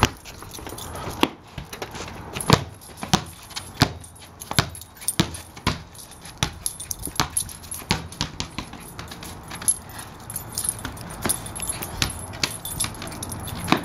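Small basketball bouncing and being knocked about on a concrete patio by a man and a small dog: irregular sharp thuds about every half second for the first several seconds, then lighter, more scattered taps.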